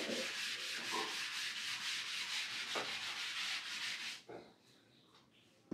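A steady rubbing hiss that stops abruptly about four seconds in, followed by a short click near the end.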